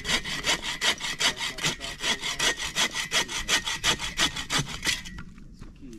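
Sven saw, a folding bow saw, cutting through firewood with quick, even back-and-forth strokes, about four or five a second, stopping about five seconds in.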